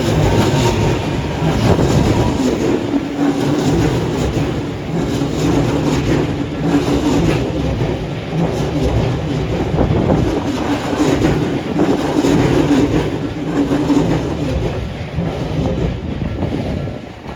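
Odakyu Odawara Line electric train passing close by at a level crossing: continuous loud running noise with wheels clacking over the rail joints, fading away near the end.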